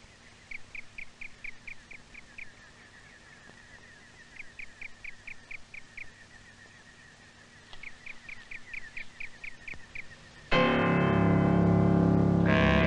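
Faint chirping in short trains of about five chirps a second, pausing between trains, over a quiet background. About ten and a half seconds in, loud organ-like keyboard music cuts in suddenly and holds.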